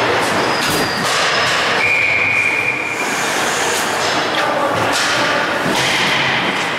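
Ice hockey skates scraping and carving across the ice, with sharp clacks of sticks and puck. A single high tone is held for about a second around two seconds in.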